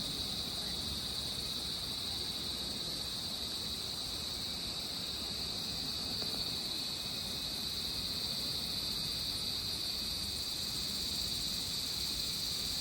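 Steady, continuous high-pitched insect chorus, a single unbroken shrill drone.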